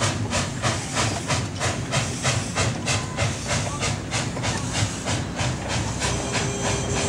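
1916 Orenstein & Koppel narrow-gauge steam locomotive with an intermediate gear drive, working slowly under load: its exhaust chuffs about four times a second with steady steam hiss. Near the end the beats blur into a more even hiss.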